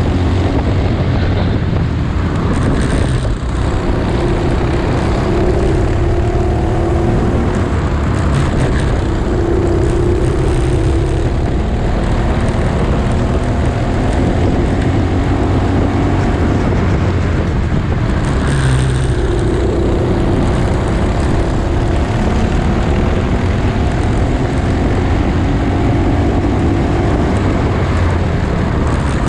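Honda Cadet kart engine running at racing speed, its pitch climbing on acceleration and dropping back again and again, as on laps of a circuit. A steady rush of noise runs underneath.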